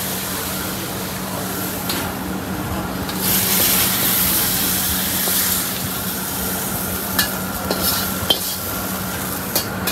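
Clams in sauce sizzling in a carbon-steel wok over a gas wok burner, with a steady hum beneath. The hiss grows louder a few seconds in as the wok is tipped, and a metal ladle scrapes and knocks against the wok several times near the end as the clams are pushed out onto a plate.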